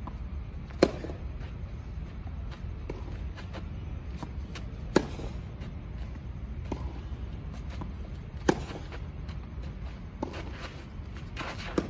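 Tennis ball struck by rackets in a rally: four sharp hits about three and a half seconds apart, with fainter hits and bounces between them.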